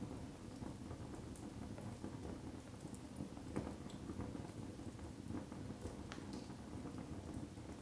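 Split wood logs burning in a fireplace: a steady low rumble of the flames with scattered small crackles and pops, one a little louder about three and a half seconds in.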